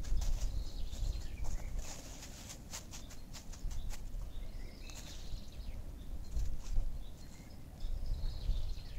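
Dry leaf litter crackling and small wooden sticks clicking as hands work around a pole-framed pit on the forest floor, in irregular bursts that are densest in the first few seconds.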